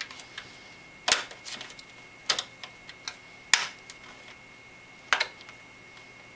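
Sheet-metal rear I/O shield being pressed into a computer case's rear cutout, snapping into place with four sharp metallic clicks spread over several seconds and lighter ticks between them.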